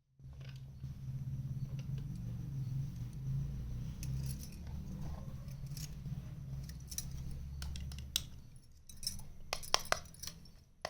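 Light clicks and taps of small plastic toy kitchen pieces being handled, over a low steady hum that stops about eight seconds in, followed by a quick run of sharper clicks near the end.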